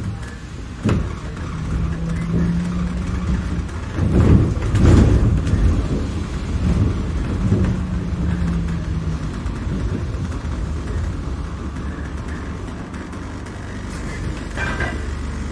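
A London bus heard from inside while it drives: a steady low engine and road rumble, with the body knocking and rattling over bumps, loudest about four to five seconds in. An engine hum rises above the rumble in two stretches.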